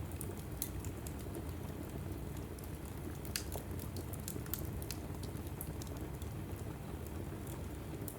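Log fire burning in a fireplace: a steady low rumble of flames under frequent small, sharp crackles and pops, with a slightly louder pop about three and a half seconds in.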